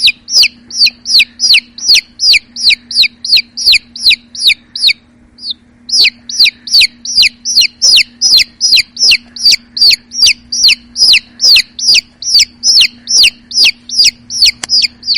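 Baby chicks peeping: a rapid run of short, high peeps, each falling steeply in pitch, about three a second, with a brief pause about five seconds in before the peeping resumes.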